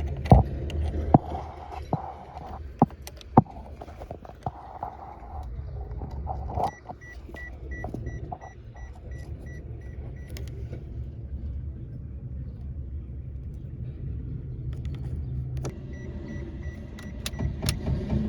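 Sharp clicks of keys and switches being handled in a Daihatsu car, over a steady low rumble. Twice, a rapid run of high electronic beeps from the car sounds for a few seconds.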